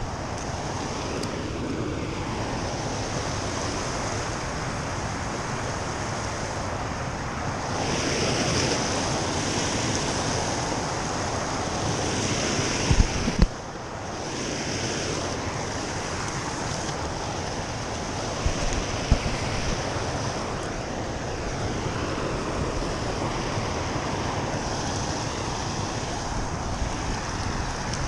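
Fast river current rushing steadily, with wind buffeting the microphone. A few low thumps come about halfway through and again a few seconds later.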